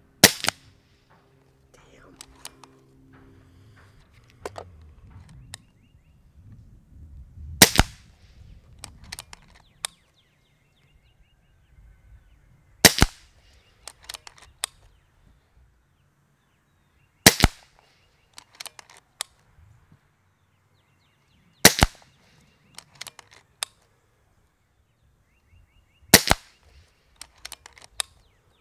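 Kral Puncher Breaker .22 PCP air rifle firing six single shots, one every four to five seconds, each a sharp crack followed by a few lighter clicks.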